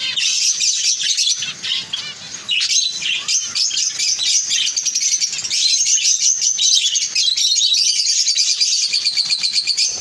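A flock of caged budgerigars chirping and chattering, a dense, continuous twittering of many overlapping quick high calls.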